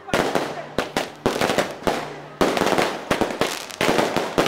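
Firecrackers and ground fireworks going off in a dense, irregular barrage of sharp bangs, one volley running into the next.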